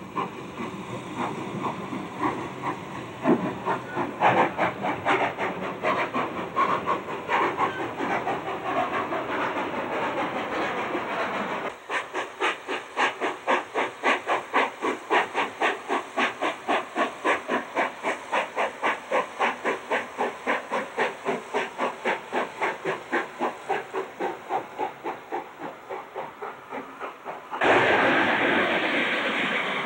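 Steam cog locomotive No. 4 of the Manitou and Pikes Peak Railway, built by Baldwin in 1897, working with steam hissing and uneven exhaust chuffs. About twelve seconds in, the sound changes to a steady, quick exhaust beat of about four chuffs a second. Near the end it gives way to a loud, steady rushing hiss.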